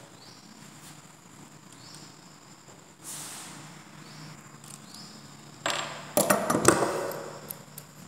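Pliers worked by hand on a small copper tube, with a few faint short rising squeaks, then a loud cluster of knocks and clatter about six seconds in as the pliers are set down on a wooden workbench.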